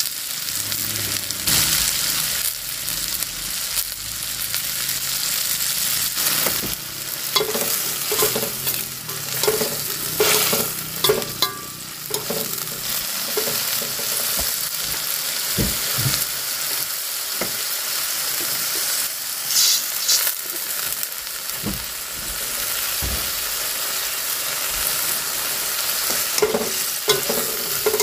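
Long beans and egg sizzling as they stir-fry in a wok, with a steady frying hiss and scattered scrapes and knocks of stirring against the pan, busiest in the middle and near the end.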